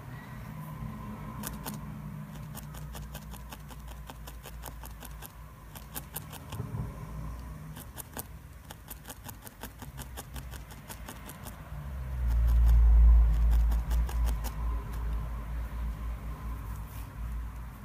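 Felting needle stabbing repeatedly into wool on the felting pad: quick runs of sharp little ticks, with a louder low rumble about two-thirds of the way through.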